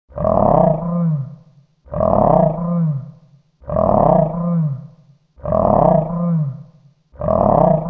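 Mythical-beast growl sound effect: a deep, rough roaring growl whose pitch dips at the end. The same growl repeats about every 1.8 seconds, four times plus the start of a fifth.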